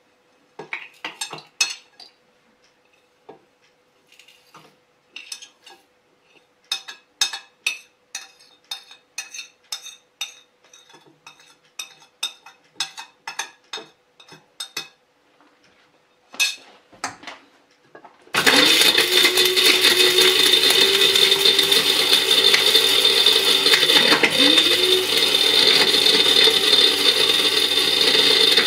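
Scattered clicks and clinks as whole dry spices are tipped into a small stainless steel electric spice grinder, then, about two-thirds of the way in, the grinder's motor starts and runs loud and steady for about ten seconds, grinding the dry spices to powder. Its pitch briefly drops and picks up again partway through, as the lid is released and pressed once more.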